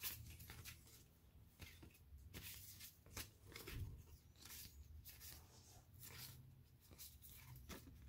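Old, dirty cardboard baseball cards scratching against one another as they are flipped through by hand, a faint series of short, irregular swipes.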